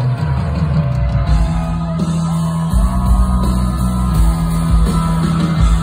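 Live hard rock band playing loud through a festival PA, heard from within the crowd: the band comes in at full volume with heavy, held low bass notes and drums.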